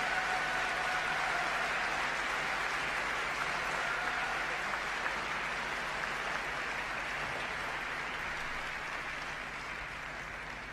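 Arena audience applauding steadily after a figure skating exhibition, slowly dying down toward the end.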